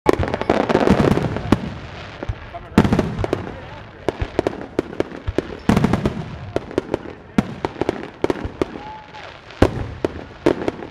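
Fireworks display: four big aerial shell bursts, at the start and about three, six and nine and a half seconds in, each followed by rapid crackling pops.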